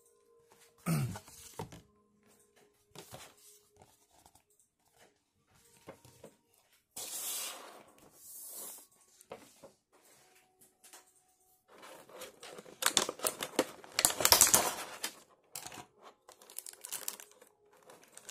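Clear plastic blister packaging and thin plastic wrap being handled: crinkling and crackling in short spells, with a thump about a second in. The crinkling is loudest and densest from about twelve to fifteen seconds in.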